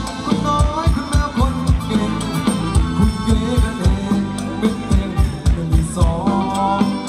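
Thai ramwong folk dance music from a live band over loudspeakers, with a steady drum beat under a melody line that bends in pitch.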